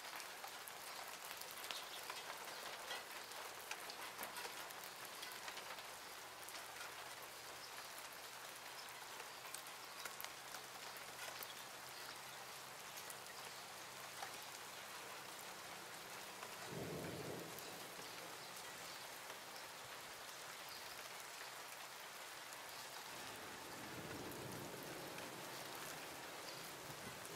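Light rain falling, a faint steady patter of drops with small individual ticks on nearby surfaces. A brief low rumble comes about two-thirds of the way through, and more low sound builds near the end.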